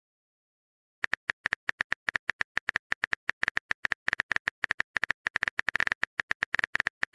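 Keyboard typing sound effect: rapid, irregular clicks, starting about a second in.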